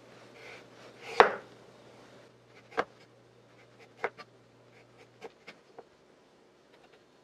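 Chef's knife slicing a peeled carrot into very thin rounds on a wooden cutting board: about seven sharp knocks of the blade on the board, spaced unevenly, the loudest about a second in.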